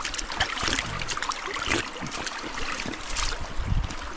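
Clothing and gear rustling against the microphone, with irregular scuffs and knocks, over the steady rush of a nearby creek.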